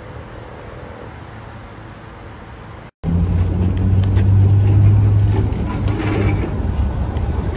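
Steady outdoor background noise, then, after a sudden cut about three seconds in, a much louder low rumble with light clatter as a pet stroller is pushed over concrete pavement.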